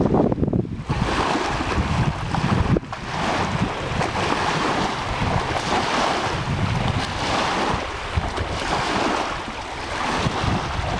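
Wind buffeting the microphone with a low rumble, over small waves lapping and washing onto a sandy lake shore in slow swells.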